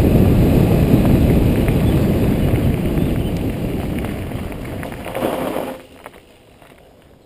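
Mountain bike running fast down a gravel road: wind rushing over the helmet-mounted microphone and tyres rumbling on the gravel, easing off after a few seconds. A brief higher-pitched sound about five seconds in, then the noise drops away suddenly as the bike slows.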